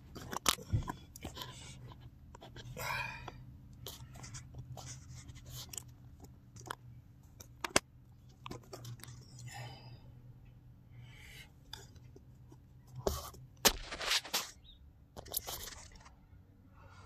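Handling noise: scattered clicks, knocks and short scrapes as a phone camera is repositioned and hands move over the plastic housing of a Graco airless paint sprayer, over a faint steady low hum.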